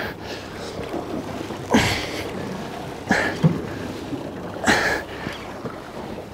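Spinning reel being cranked in short bursts about every one and a half seconds while a hooked kingfish is pumped in on a heavily bent rod, over wind and sea noise.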